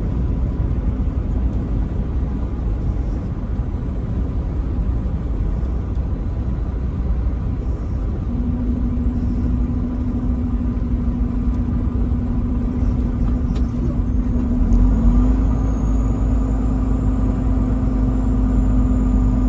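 Steady low road and engine rumble of a moving truck. About eight seconds in a steady engine drone joins it, shifting slightly in pitch and growing a little louder about fifteen seconds in.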